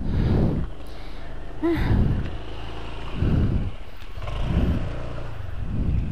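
Motorcycle engine running at low revs while pulling away up a steep slope. Its sound swells roughly every second and a half.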